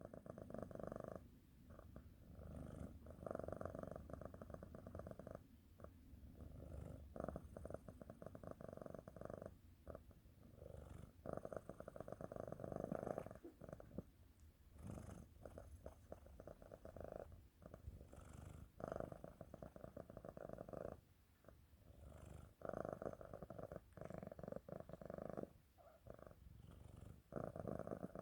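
Domestic cat purring steadily while napping, the purr swelling and fading with each breath about every two seconds.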